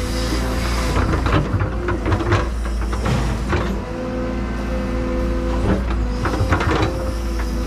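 Excavator running steadily with a constant engine and hydraulic drone while its bucket scoops and dumps soil into an excavation. Several short rattling knocks of dirt and metal come through, the main ones about 1, 2, 3½, 6 and 6½ seconds in.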